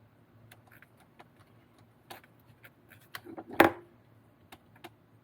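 Scattered small clicks and clinks of hand tools on metal hardware as a nut is tightened on an RC car kit, with one louder clack about three and a half seconds in.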